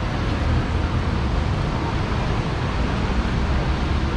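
Steady hiss of heavy rain mixed with the low rumble of city road traffic.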